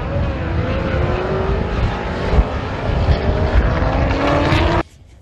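Classic touring-car engines running hard on a race circuit, the engine note slowly rising as the cars accelerate. The sound cuts off suddenly near the end.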